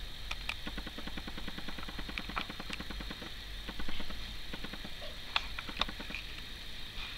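Kittens moving about in a cardboard play box: scattered light clicks and scratches, with a fast fluttering run of soft pulses in the first three seconds or so.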